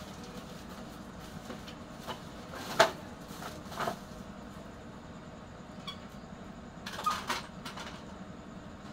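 Scrap computer motherboards clattering and knocking as they are put into a woven plastic sack, with the sack rustling as it is handled; the sharpest knock comes about three seconds in and a cluster of clatters near the end. A steady low hum runs underneath.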